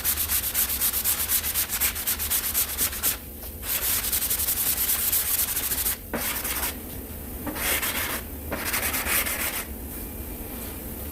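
Sandpaper on a hand sanding block rubbed quickly back and forth over cured automotive body filler, a rapid rhythm of gritty strokes. It stops briefly twice, then goes on in shorter, weaker spells and dies down to a faint hiss near the end.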